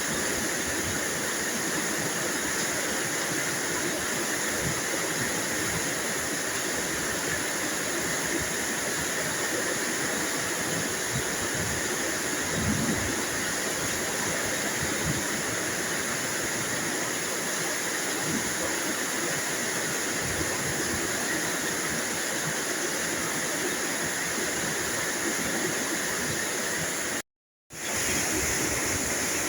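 Steady heavy rain, an even hiss of water, cut off to silence for a split second near the end before it resumes.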